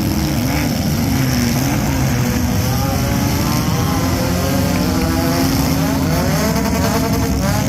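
Several demolition derby car engines running and revving together, their pitches rising and falling against one another.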